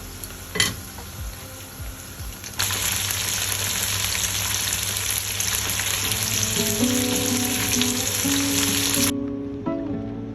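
Food frying in a pan: a loud, steady sizzle that starts suddenly a couple of seconds in and cuts off abruptly near the end. Plucked guitar music comes in partway through.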